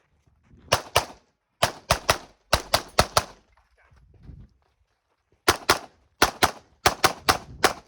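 9mm competition pistol (CZ Shadow 2 with red-dot optic) fired rapidly, about sixteen shots, mostly in quick pairs, in two strings separated by a pause of about two seconds: a USPSA carry optics stage being shot.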